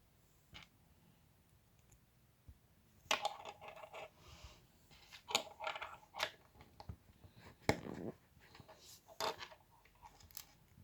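Small plastic LEGO pieces clicking and clattering as they are handled, with a run of sharp clicks and rattles starting about three seconds in.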